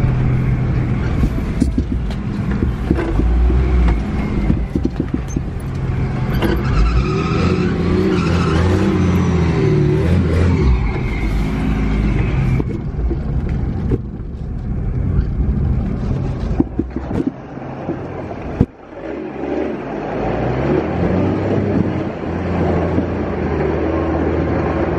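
Off-road vehicle's engine labouring over a rough forest track, its pitch rising and falling with the throttle, with knocks and rattles as the vehicle goes over bumps. There is a short break about three-quarters of the way through, then the engine carries on.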